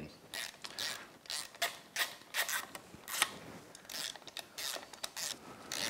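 Ratchet wrench clicking in quick, uneven strokes, about three or four clicks a second, as it loosens the 12 mm bolts holding a Yamaha 90 outboard's upper water pump housing.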